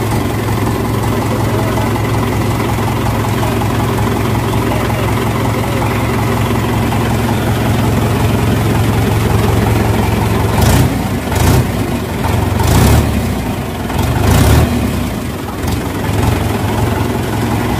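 A 2016 Mahindra 415 DI tractor's four-cylinder diesel engine running steadily just after being started. It gets louder several times, briefly, between about ten and fifteen seconds in.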